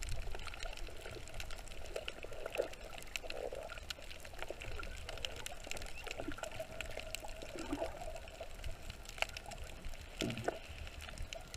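Underwater sound picked up by a camera in its waterproof housing: a steady low rush of moving water with constant fine crackling, and a few short bubbly gurgles.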